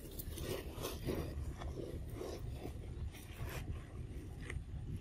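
Dry leaf litter rustling and crunching in quick small crackles as a macaque forages on the ground and handles food, over a steady low rumble.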